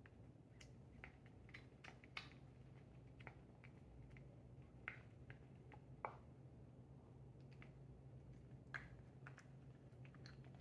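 A British Shorthair munchkin cat eating, heard as faint, irregular chewing clicks and smacks, roughly one a second.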